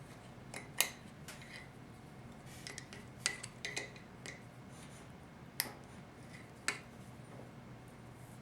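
Small hand tools clicking and clinking against the metal parts of a 4L60E transmission pump during reassembly, a few separate sharp taps with a faint ring, scattered irregularly.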